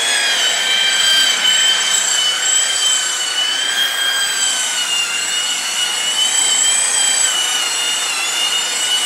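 Electric rotary buffer with a wool pad running at about 3,000 RPM while polishing stainless steel: a steady high whine, its pitch wavering slightly as the pad works against the metal.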